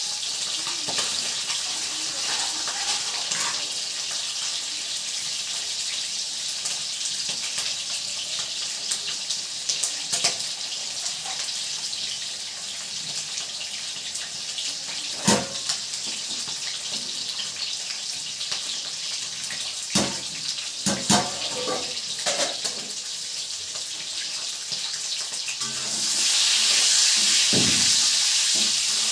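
Hot oil sizzling steadily around whole boiled eggs frying in a steel kadai, with a few sharp clinks of steel utensils and pot lids. The sizzle swells louder near the end as the eggs are turned with a steel spatula.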